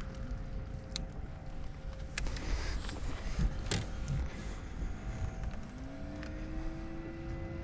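Fishing-boat noise on the water: a low steady rumble with a few sharp knocks and clicks, and a hum that rises in pitch about six seconds in and then holds steady.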